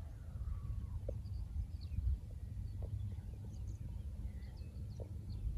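Outdoor ambience: a steady low rumble of wind on the microphone, with a few faint, short bird chirps.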